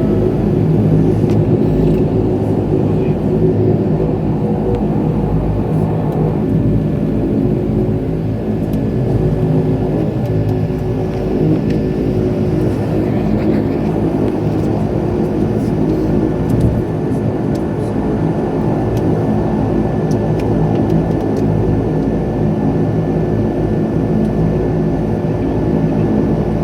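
Twin turboprop engines and propellers of a de Havilland Dash 8-100 running with a steady, even drone of stacked low tones over a low rumble.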